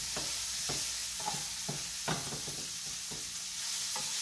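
Chopped onions, sweet peppers and green onions sizzling in hot grapeseed oil in a pan, stirred with a wooden spoon that knocks and scrapes against the pan several times, hardest about two seconds in.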